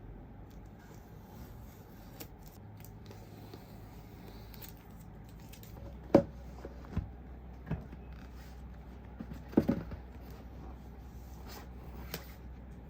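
Packaging and items being handled during an unboxing: faint rubbing and scraping, with a few sharp taps and knocks, the loudest about halfway through and a quick cluster a few seconds later.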